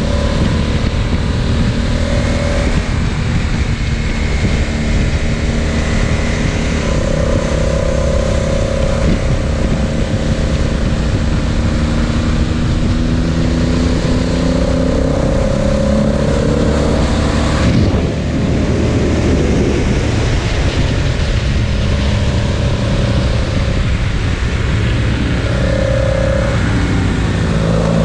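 Motorcycle engine running under way, its pitch rising and falling as the revs change, over a steady rush of wind noise, with a brief dip in the sound about two-thirds of the way through.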